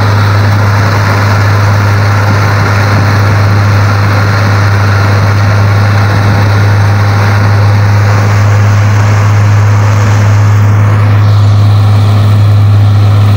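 Fiatagri 3700 combine harvester running steadily as it cuts and threshes wheat: a loud, constant low drone with a spread of threshing noise over it. The sound turns a little duller in the second half as the harvester moves away.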